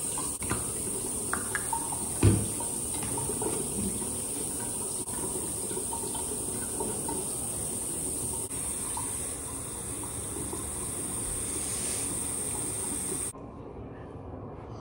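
Bathroom sink faucet running steadily into the basin while hands splash and rub water on a face, with a single thump about two seconds in. The tap is shut off and the running water stops abruptly near the end.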